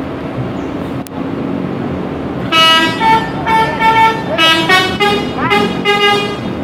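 Telolet multi-tone bus horn playing a short melody of about eight separate notes at changing pitches, with one quick upward slide near the end. The notes start about two and a half seconds in, over a steady low rumble.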